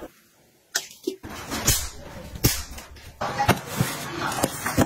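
Cardboard shipping box being handled and opened: after a moment of near silence, a few sharp slaps and knocks, then denser scraping and rustling of cardboard near the end.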